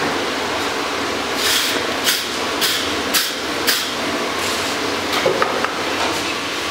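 Five hammer blows about half a second apart on a steel drift being driven through the red-hot hardy hole of a striking anvil, then a few lighter knocks. A steady rushing noise from the forge runs underneath.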